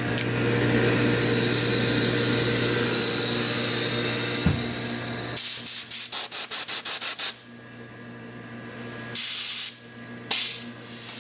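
Compressed-air blow gun blasting air from a newly plumbed shop air line as it is tested. It hisses continuously for about five seconds, then gives a rapid string of short bursts, about five a second, and three more short blasts near the end.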